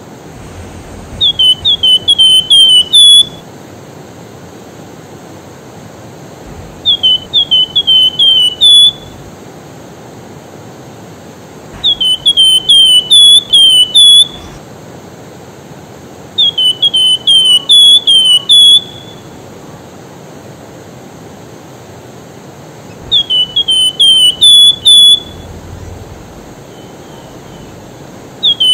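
Javan fulvetta (wergan jawa) singing in a rising, calling mood: five bouts of about six quick, high whistled notes, each bout about two seconds long and a few seconds apart. Under it runs the steady rush of a fast river.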